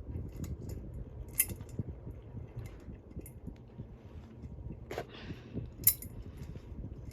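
Hunter Original ceiling fan running with a low, uneven hum, with a few scattered sharp clicks and a short rustle about five seconds in.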